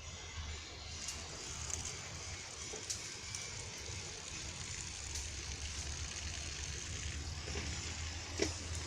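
Steady outdoor background noise: a low rumble and an even hiss, with a few faint clicks.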